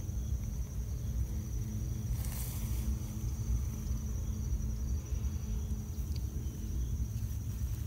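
Outdoor ambience: a steady high-pitched insect drone over a low steady rumble, with a brief hiss about two and a half seconds in.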